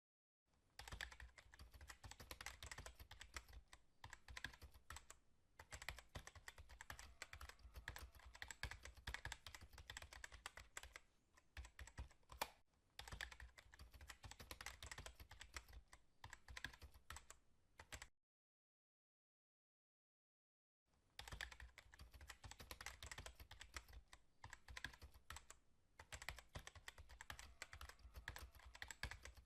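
Rapid, continuous clicking in two long runs, broken by about three seconds of dead silence a little past the middle.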